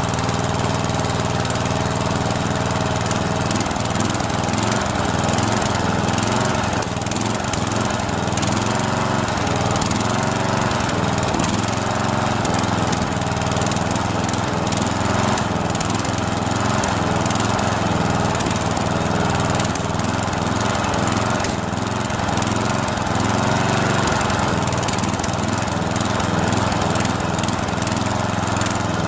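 Ride-on lawn mower engine running steadily at a constant speed while the mower stands still.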